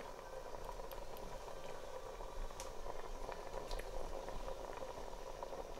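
A pot of thick brown-lentil daal simmering gently, a soft steady bubbling with occasional small pops.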